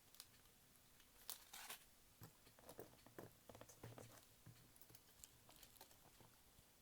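Faint scattered clicks and light rustles of tiny parts being handled, as a 1.5 mm retaining clip is tried for fit on a cassette player's mechanism.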